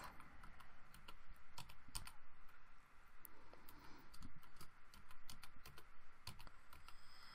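Faint typing on a computer keyboard: irregular key clicks in quick runs with short pauses between them.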